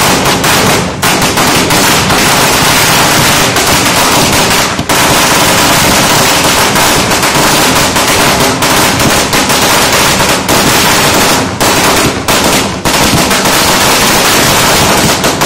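Firecrackers on the ground going off in a rapid, unbroken crackle of loud bangs, which stops suddenly right at the end.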